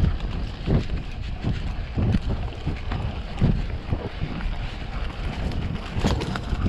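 Wind buffeting the microphone of a mountain bike riding a dirt trail, with the tyres rumbling over the ground and irregular knocks and rattles from the bike hitting bumps, a few heavier ones near the end.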